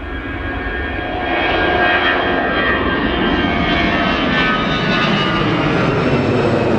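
Twin-engine Airbus A320-family airliner taking off and climbing overhead: loud jet engine roar at takeoff power that builds over the first couple of seconds, with a high whine that drops in pitch as it passes.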